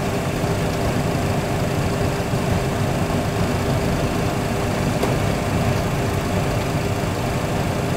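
Steady rumble and hum of a Boeing 737 full flight simulator cockpit during the landing roll, with simulated engine and runway noise and no reverse thrust.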